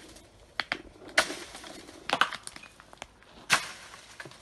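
Walnuts being beaten from a walnut tree with a long pole: an irregular run of sharp knocks and rustles as the pole strikes the branches and nuts clatter down onto the hard ground, the loudest about a second in and about three and a half seconds in.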